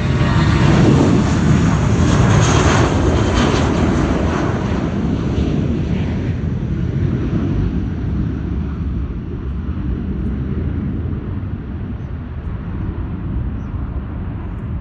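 Airbus A320 airliner taking off under full engine thrust: a loud, steady rush and rumble, roughest in the first few seconds, then easing off and smoothing out as the plane climbs away.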